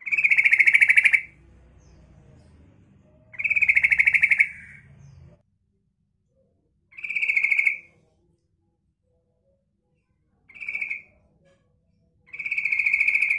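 Female yellow-vented bulbul (trucukan) calling: five short, fast-pulsed chattering calls at one steady pitch, each about a second or less, the fourth the shortest. This female call is used as a lure to get young males to respond and sing.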